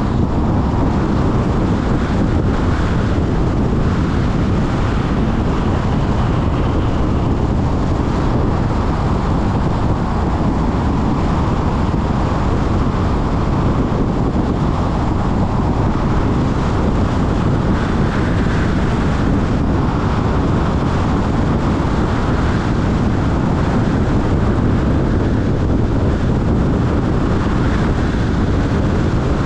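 Steady road and wind noise from a car driving at speed, with wind rumbling on the microphone.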